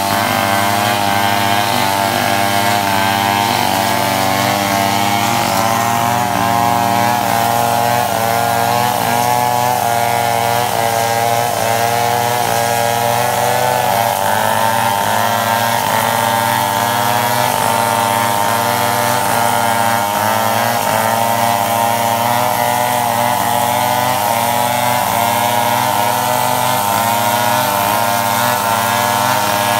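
Two-stroke chainsaw running steadily under load while cutting wood, its engine note wavering a little throughout.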